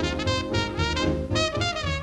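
Swing band music with a brass section, trumpet and trombone, playing a jivey tune over a steady pulsing bass beat.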